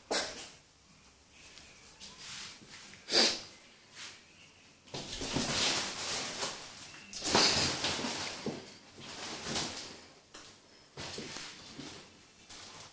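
Fabric cat tunnel rustling and scraping on the floor as Ocicat kittens run through it and pounce on it. Irregular rustles, with a sharp loud one about three seconds in and a long spell of rustling in the middle.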